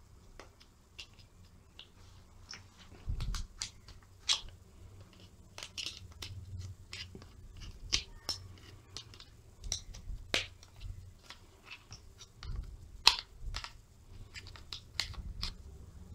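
Irregular plastic clicks and snaps as a flat-bladed screwdriver pries apart the plastic housing and metal plate of a mechanical dryer timer, with small knocks from handling the parts. The sharpest snaps come about 4, 10 and 13 seconds in.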